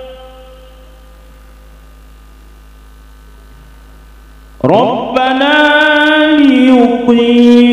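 A male qari chanting Qur'an recitation (tilawah) through a microphone and PA, in long ornamented phrases with gliding pitch. The voice comes in loudly about four and a half seconds in, after a pause that holds only a faint steady electrical hum.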